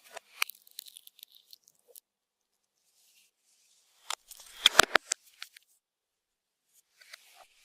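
Slime and makeup worked by hand, giving scattered sharp clicks and crackles with a dense burst of crunching clicks about four to five seconds in.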